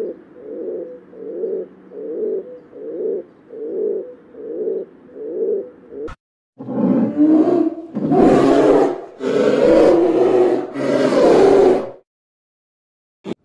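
Animal calls: a low call repeated about eight times at an even pace, then, after an abrupt cut, three long, loud calls of over a second each.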